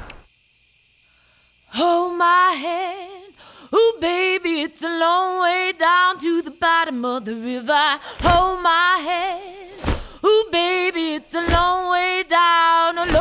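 Music track of a woman singing with strong vibrato, apparently unaccompanied, starting after a brief moment of near silence about two seconds in.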